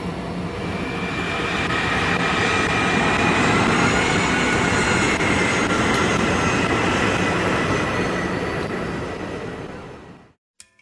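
Small plane's engine and propeller running at high power during the takeoff roll, heard from inside the cabin as a steady drone with a thin whine in it. It builds over the first few seconds, holds, then fades away and stops shortly before the end.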